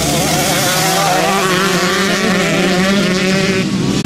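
Motocross dirt bike engines revving up and down as the bikes ride a dirt corner, more than one engine at once. The engine sound changes abruptly near the end.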